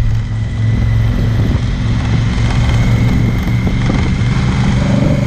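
Motorcycle engine running at a steady speed under way, its note holding even.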